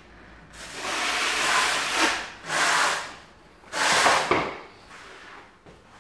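Notched tile trowel scraping through tile adhesive on a concrete floor, combing it into ridges in about three long strokes. The scraping stops about four and a half seconds in.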